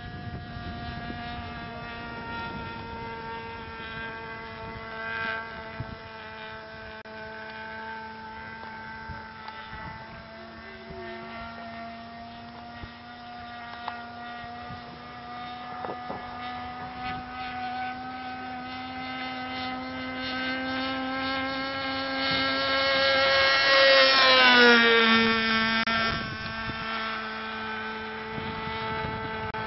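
Radio-controlled scale Beechcraft Bonanza model airplane in flight, its engine running at a steady pitch. It grows louder as it comes in, and about 24 seconds in it passes close with a sharp drop in pitch, then carries on more quietly.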